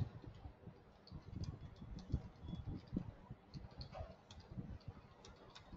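Faint, irregular keystrokes on a computer keyboard as a sentence is typed.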